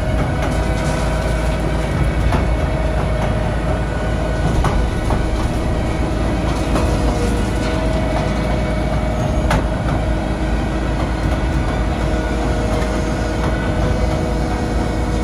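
MUS-MAX 11 Z wood chipper and its loading crane running: a loud, steady mechanical drone with a steady whine through it, and a couple of sharp knocks.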